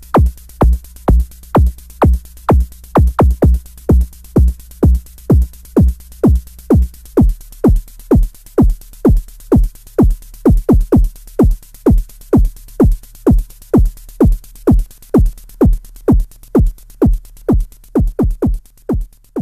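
DIY analog synth kick drum module (KIK01, sine plus noise) triggered in a steady beat of about two hits a second, with a few quick doubled hits. Each hit is a sine tone that drops sharply in pitch into a short low thump. A steady low hum and a faint hiss run under the hits, and the hum drops lower about seven seconds in.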